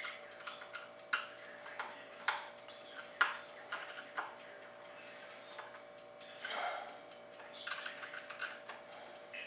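Irregular light clicks and scrapes from a small hand tool working along the edge of a foam-and-balsa tail-fin piece, with one longer scrape about two-thirds of the way through. A faint steady hum runs underneath.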